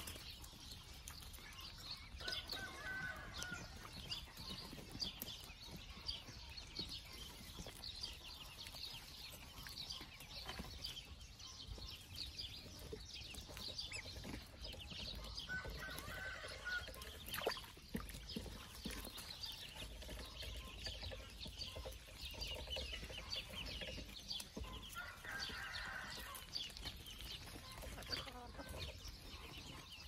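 A flock of ducklings peeping continuously in high, rapid chirps, with a few louder clucks from the chickens now and then.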